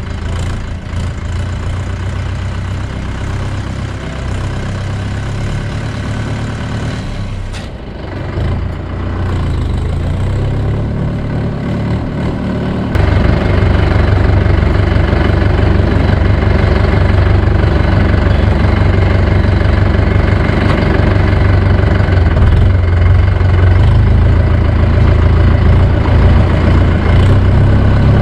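Mahindra Yuvo 475 DI tractor's four-cylinder diesel engine running steadily as the tractor is driven, heard close up from the open seat. About thirteen seconds in it gets louder, with a heavier low rumble.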